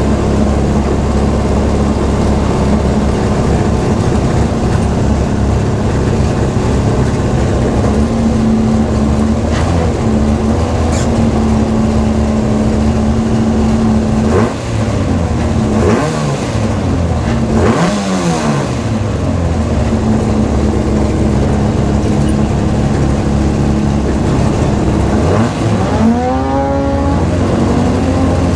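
Ford Fiesta rallycross car's engine on a warm-up run, mostly held at steady revs. Around the middle the revs drop and rise several times, as at lifts and gear changes, and near the end they climb steeply under acceleration.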